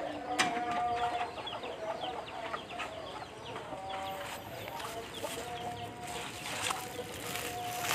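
Chickens clucking and peeping, with many short falling chirps, over a long steady tone that comes and goes.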